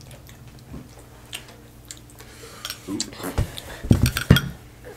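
Tableware handled on a dining table: a spoon in a small glass bowl and the bowl being moved and set down. A few faint ticks at first, then a quick run of knocks and clinks about three seconds in, loudest near the end.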